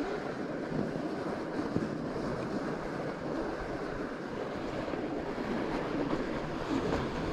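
Steady rushing noise of a fat bike riding a snowy trail: the wide tyres rolling over snow mixed with wind on the microphone.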